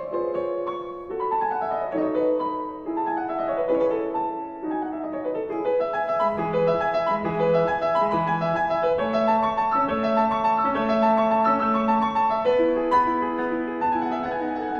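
Background piano music: notes played over held lower notes, with quick falling runs near the start.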